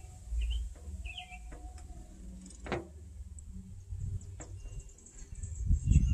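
Boiled crawfish being peeled by hand: a few sharp snaps and clicks of the shell cracking, the strongest about two and a half seconds in. Birds chirp a few times in the first second or so.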